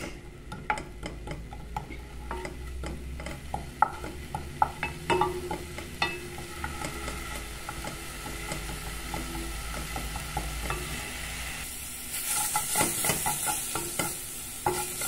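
Chopped garlic frying in oil in a metal pot, stirred with a wooden spoon: repeated knocks and scrapes of the spoon against the pot over the sizzle of the oil, which grows louder about twelve seconds in.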